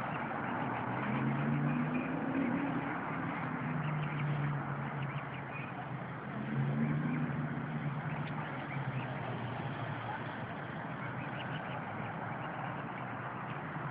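A low engine drone that swells twice, about a second in and again around six seconds in, over a steady hiss of outdoor background noise.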